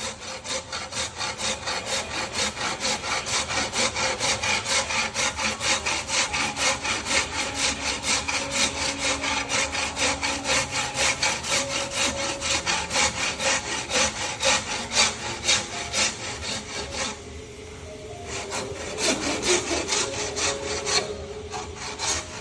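Hand saw cutting along a wooden joint seam in quick, even back-and-forth strokes, sawing the seam so the joint closes tight. The sawing pauses about seventeen seconds in, then a few more strokes before it stops.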